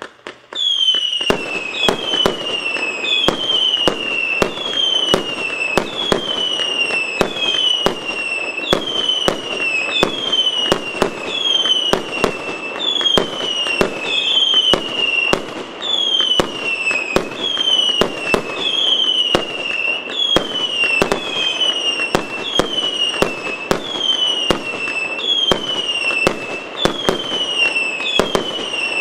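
Multi-shot firework cake battery of 308 mixed-calibre shots firing in rapid succession. Sharp pops and bangs come several times a second, with a falling whistle repeating a bit faster than once a second. Firing starts about half a second in and runs on unbroken.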